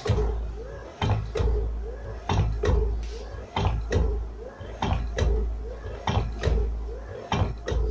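Homemade 12-volt electric hammer press cycling: a low motor hum under sharp knocks that come in pairs about once a second as the ram strikes down and comes back up.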